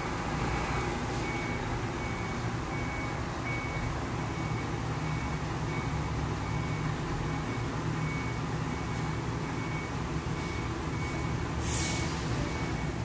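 A vehicle's reversing alarm beeping steadily, about two high beeps a second, over a low steady engine rumble. There is a brief hiss near the end.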